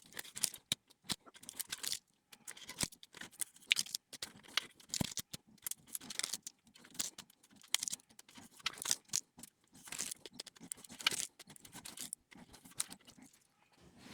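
Double-sided tubular tyre tape being run around a carbon tubular rim and pressed down by hand, its sticky backing giving off faint irregular crackles, ticks and small peeling sounds.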